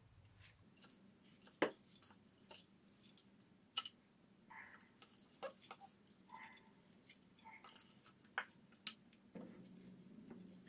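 Faint, scattered taps and scrapes of a wooden spatula against a ceramic bowl and a glass baking dish as washed rice is pushed out of the bowl and spread over the dish, with a few soft rustles between the taps.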